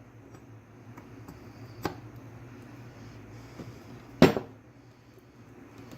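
Metal power steering pump parts clinking as they are handled and fitted together: a light click about two seconds in and a sharper, louder clink about four seconds in, over a steady low hum.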